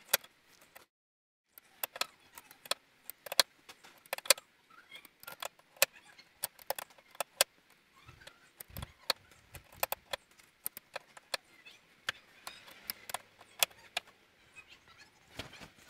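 Adjustable wrench clinking on the outer tie rod end's jam nut as it is turned and repositioned to tighten the nut: a run of sharp metallic clicks, a few a second, with a brief silent gap about a second in.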